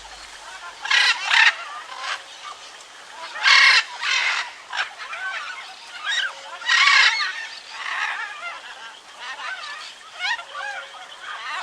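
Birds calling: many short, quick chirps, broken by three loud harsh calls about a second, three and a half seconds and seven seconds in.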